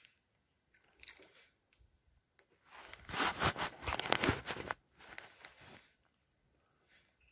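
Dry brush crackling and snapping: a dense burst of crunching about three seconds in that lasts nearly two seconds, with fainter crackles before and after it.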